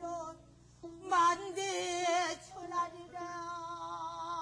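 A woman singing pansori solo, her voice holding long notes that waver in pitch, with a brief break about half a second in before the line resumes.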